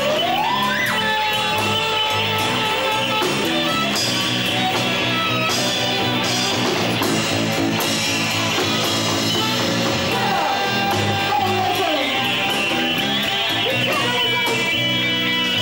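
Live rock band playing, led by electric guitar, over a repeating bass line. The lead line slides and bends up and down in pitch.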